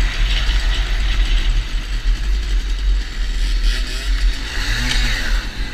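Motorcycle engine running while riding, under a heavy low rumble of wind on the microphone; the engine's pitch rises and falls about four to five seconds in.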